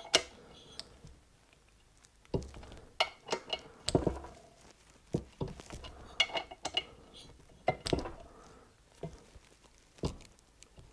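Socket wrench clicking and metal clinking in short irregular bursts as the connecting rod cap bolts are tightened down in stages.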